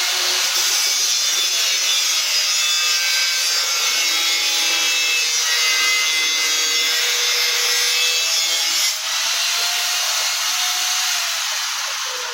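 A power saw cutting through wood: a loud, steady rasping noise, with a brief dip about nine seconds in, easing near the end.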